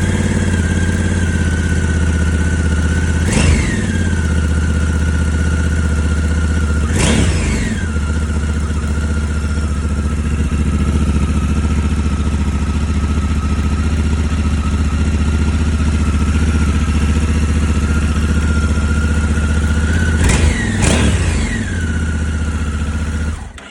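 Honda NT1100's parallel-twin engine idling through its stock exhaust, blipped four times with quick revs that rise and fall: once, again a few seconds later, then twice close together near the end. The engine is then switched off, and the sound cuts off suddenly.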